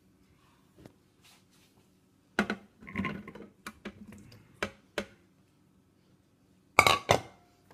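Beet chunks dropped into a plastic food processor bowl: a string of knocks and thuds, with the two loudest clattering knocks near the end, over a faint steady hum.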